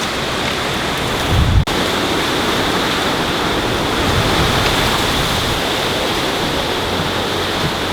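Steady rushing noise with no distinct events. About one and a half seconds in there is a brief low thump, then an abrupt break, after which the even rushing carries on.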